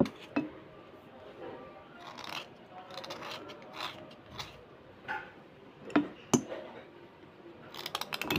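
Knife blade scraping along a slate pencil, irregular scratchy strokes. A few sharp clicks stand out, one right at the start and two about six seconds in.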